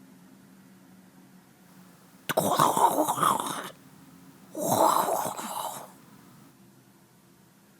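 A man making a sound effect with his mouth: two breathy, hissing noises, each a little over a second long, with a short gap between them.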